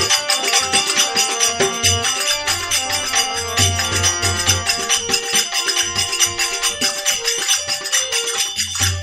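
Instrumental interlude of a Rajasthani devotional bhajan: held melody notes over fast, steady jingling percussion.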